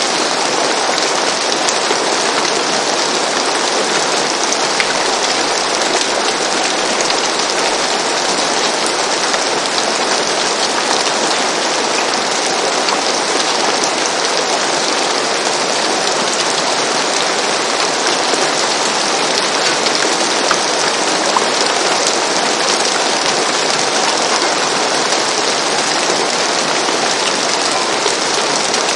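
Steady rain falling on a roof, a dense even patter of drops.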